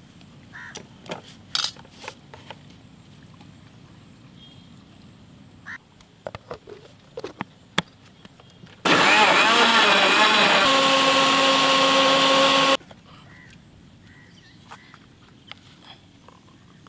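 Electric countertop blender running for about four seconds, chopping pineapple chunks with sugar into juice. Its whine wavers at first, then holds a steady pitch until it stops suddenly. Before it come a few light clicks and knocks.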